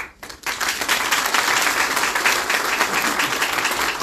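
Audience applauding: a dense patter of many hands clapping together that starts about half a second in and keeps up steadily.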